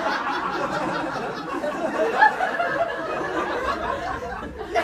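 Audience laughing at a joke, the laughter slowly dying down near the end.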